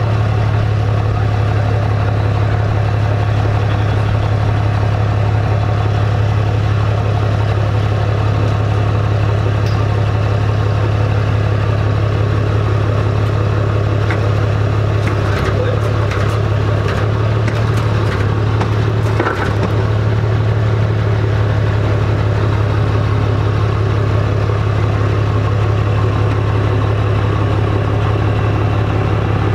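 An engine idling steadily with a low drone, and a few short clanks and rattles around the middle.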